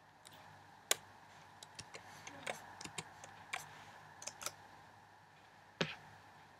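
Hands braiding long hair: faint, irregular clicks and crackles as strands are crossed over and pulled tight, the sharpest about a second in and another near the end.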